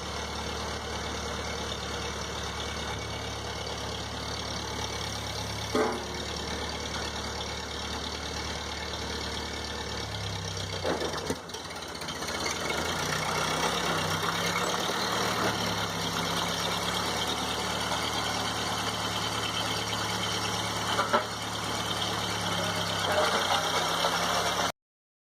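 1952 Ford 8N farm tractor's four-cylinder engine running steadily while dragging gravel, its note shifting partway through, with a few short knocks. The sound cuts off abruptly near the end.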